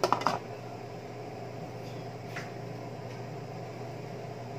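An aluminium lid is set down onto a large aluminium stockpot, with a short metallic clatter right at the start. A steady low hum follows.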